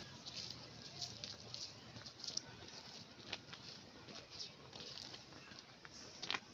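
Small birds chirping faintly: scattered short high chirps and ticks, with one sharper click about six seconds in.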